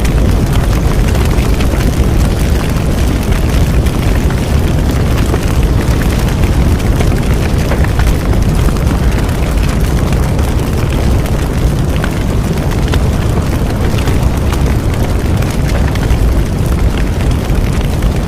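Bonfire burning, a steady low roar with many small crackles and pops throughout.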